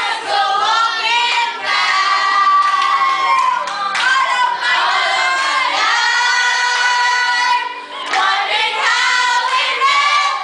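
A group of girls and a woman singing a slow song together, one voice sung into a microphone, with long held notes and a short break about eight seconds in.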